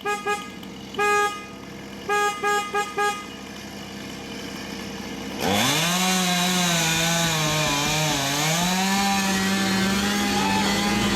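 A car horn sounds a series of short toots over the first three seconds. About five and a half seconds in, a two-stroke chainsaw revs up quickly to full speed and keeps running at high revs, dipping briefly now and then as it cuts.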